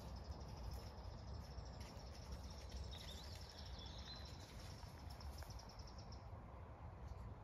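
Quiet countryside ambience: a low steady rumble with a faint, thin, high trill that stops a little before the end, and a brief chirp about three seconds in.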